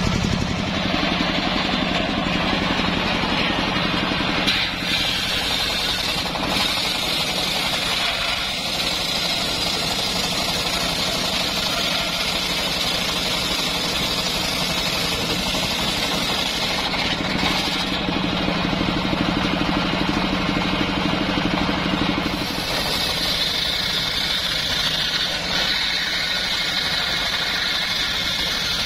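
A homemade engine-driven circular sawmill rips lengthwise through a teak log. The large blade makes a steady cutting hiss over the constant hum of the running engine, and the cutting noise dips briefly a couple of times as the wood is fed through.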